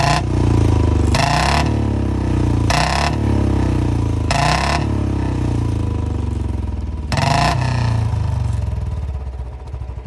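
A Royal Enfield Bullet 350 BS6 single-cylinder engine runs, and the throttle is blipped in four short revs while an added kill switch is cut in to try to make the exhaust backfire. No pops or bangs come, which the owner puts down to the BS6 model not backfiring. The engine dies down near the end.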